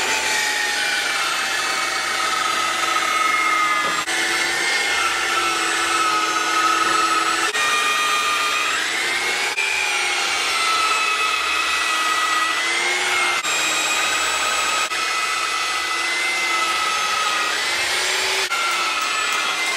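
Mafell Z5EC portable electric band saw running under load as it cuts a curved arch through a thick timber beam. It is a steady motor-and-blade whine whose pitch dips and recovers slightly as the cut loads it.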